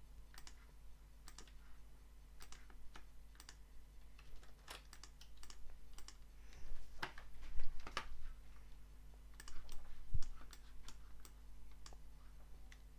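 Irregular clicks of a computer mouse and keyboard, some sharper and louder than others, over a steady low hum.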